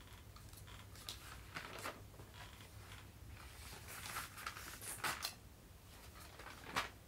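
Faint rustling and handling noises, with a few short soft scrapes and clicks scattered through.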